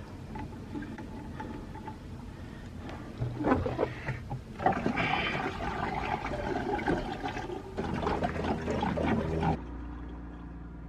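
Liquid pouring and gurgling as marine antifreeze is poured from a jug into the engine's cooling hose, with a few knocks from handling. It gets louder about three seconds in and drops away sharply near the end.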